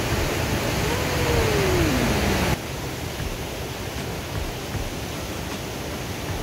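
Steady roar of rushing water from the Great Falls rapids of the Potomac River. About a second in, a single drawn-out tone rises slightly and then falls away. About two and a half seconds in, the roar drops suddenly to a quieter level and carries on.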